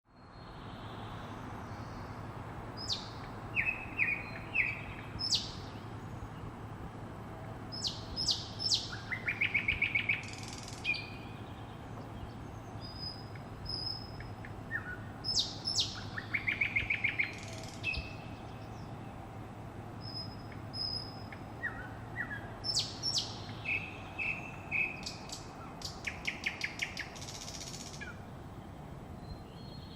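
Several songbirds singing and chirping in a dawn chorus: short repeated trills, bright sharp notes and thin whistles, coming in clusters throughout, over a steady low background hum.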